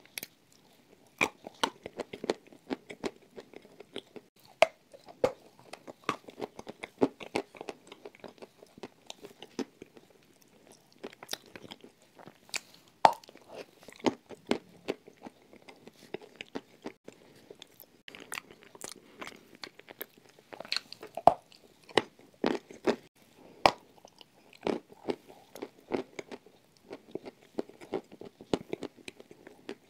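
A person biting and chewing dry chunks of edible clay: sharp, irregular crunches, several a second at times, with softer chewing in between.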